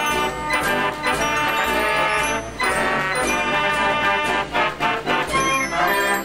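Ch. Marenghi fairground organ playing a tune, its brass trumpet pipes carrying the melody over bells and percussion strikes.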